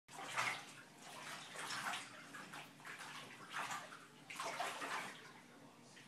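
Bathwater sloshing and splashing as laundry is trodden underfoot in a filled bathtub, in repeated surges about once a second.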